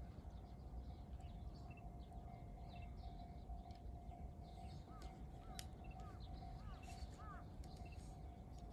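Small birds chirping and calling over a faint, steady low rumble and a thin steady hum, with a run of short arched calls about five seconds in.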